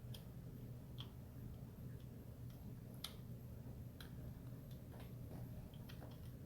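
Faint, sharp clicks of small steel parts of a shotgun trigger group being handled and fitted, several about a second apart and the sharpest about three seconds in, over a low steady hum.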